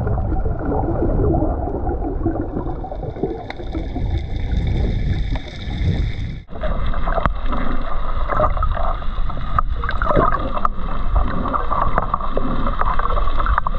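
Underwater sound picked up by an action camera in its waterproof housing: a steady, muffled rumble of moving water with gurgling and scattered clicks. It breaks off sharply about six and a half seconds in and comes back brighter and hissier.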